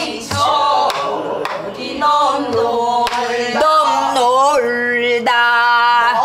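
Pansori singing, held notes that waver and bend in pitch.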